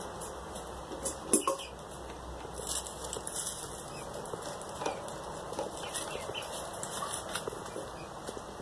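Young Black Australorp chickens clucking and peeping on and off as they scratch and peck, with one louder, sharper call about a second and a half in.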